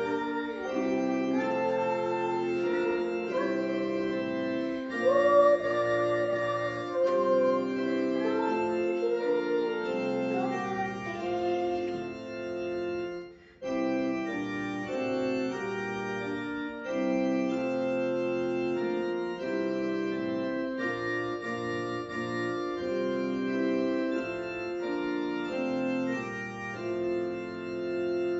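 Electronic keyboard set to an organ voice playing an instrumental interlude of a hymn: sustained chords with a melody line above them, with a brief pause about halfway through.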